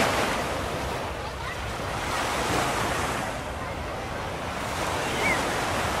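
Ocean surf breaking and washing on a sandy beach, with wind rumbling on the microphone.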